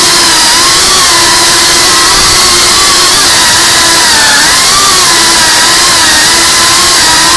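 FPV quadcopter's brushless motors and propellers whining loud and close, the pitch wavering slightly and dipping briefly about four seconds in.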